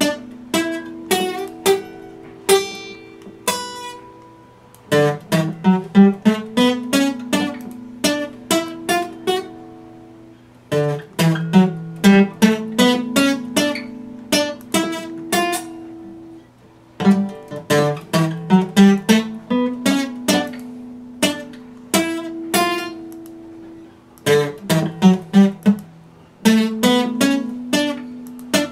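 Epiphone acoustic guitar played with single picked notes over ringing bass notes, in a pattern that repeats in phrases about every six seconds.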